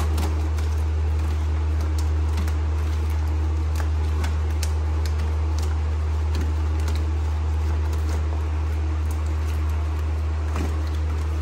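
A steady low hum, with scattered faint clicks and crinkles as a brittle plastic sheet is peeled off the inside of a car door.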